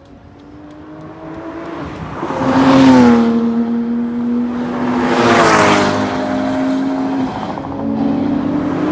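Sports-car engines running hard on a race circuit as two cars go past at speed about three seconds apart, each engine note dropping in pitch as it goes by, and a third car building up near the end.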